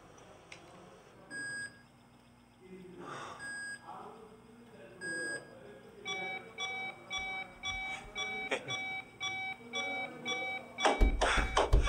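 Electronic beeping from a hospital patient monitor, slow at first and then quickening to about two beeps a second from about halfway. A loud, low rumbling thud cuts in near the end.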